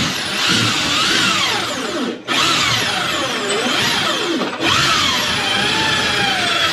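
Handheld electric drill boring into a wooden door, its motor pitch wavering as the bit bites and loads up. It stops briefly twice and starts again.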